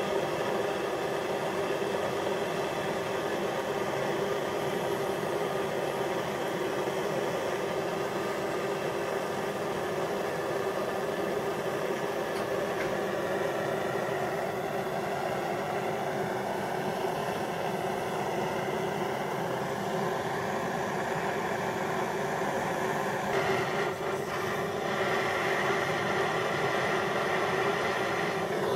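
Handheld gas torch burning steadily with an even rushing hiss as its flame heats rusted steel; the sound changes slightly about 23 seconds in.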